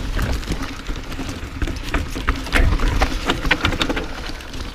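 2015 Santa Cruz Nomad mountain bike rolling down a dirt forest trail: a low tyre rumble with irregular clicks and knocks as the bike rattles over roots and rocks.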